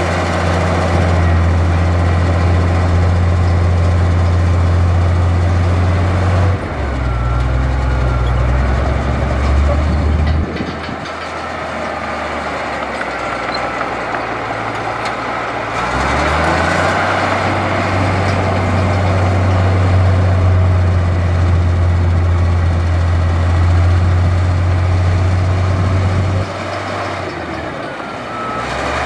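Heavy diesel engine of earthmoving machinery running, its note shifting several times and dropping back for a few seconds around the middle before picking up again.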